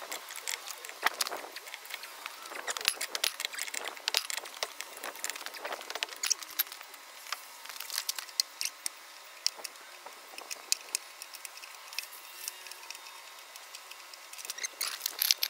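Scattered metallic clicks, clinks and scrapes of hand tools and metal parts being handled at a car's rear wheel, irregular and with no steady rhythm.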